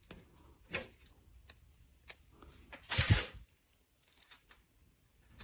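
Paper label handling: light clicks and short rustles of a thermal label and its backing being peeled and pressed onto a shelf, with one louder, longer rustle and a thump about three seconds in.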